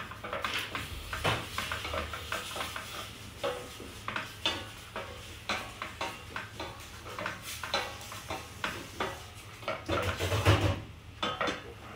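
A wooden spatula stirring beef in a stainless steel pot, with irregular scrapes and knocks against the pot over a light sizzle as the meat sautés on low heat for seaweed soup. One louder knock comes about ten seconds in.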